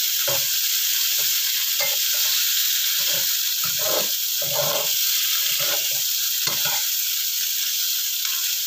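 Tofu cubes with shallots and garlic sizzling in hot oil in a wok, with a metal spatula scraping and tossing them in irregular strokes. The scraping stops near the end while the sizzle goes on.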